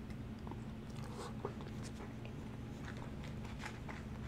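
Close-miked chewing of a mouthful of animal-style fries, with soft wet mouth clicks and smacks over a faint steady low hum.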